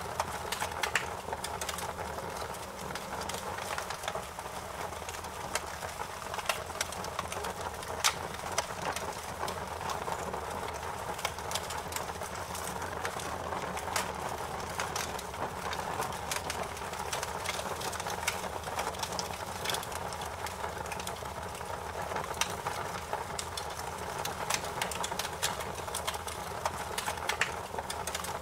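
Fire in a fireplace crackling, with frequent sharp pops and snaps over a steady hiss.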